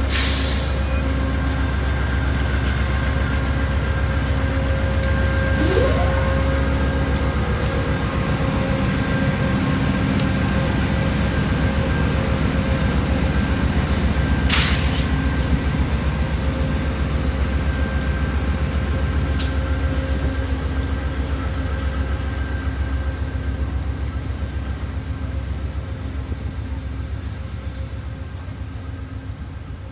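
GE P40DC diesel locomotive running as it hauls a train past and away, its steady low engine drone fading over the last several seconds. Several sharp clanks from the wheels and train are heard along the way, the loudest about midway through.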